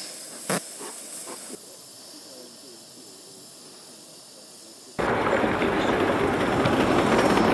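Live-steam Gauge 3 model locomotive: a faint steady hiss, then about five seconds in a much louder, even rushing noise as the engine runs with its train. A sharp click comes near the start.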